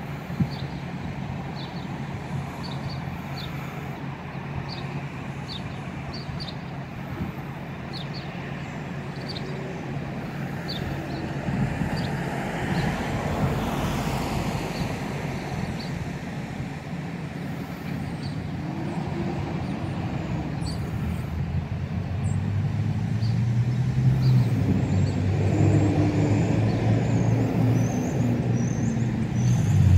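Road traffic with a steady low engine hum. A car passes about halfway through, and a louder vehicle engine builds toward the end.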